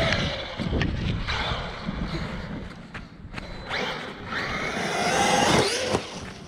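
Traxxas RC car's electric motor whining up and down in pitch as the car accelerates and slows, loudest a second or two before the end, over a haze of tyre and dirt noise.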